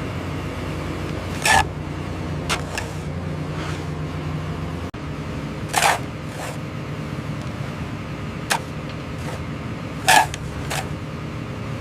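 Heavy earthmoving machine's diesel engine running steadily, with about six short, sharp mechanical noises over it; these are the loudest sounds. The engine drone drops out briefly near the middle.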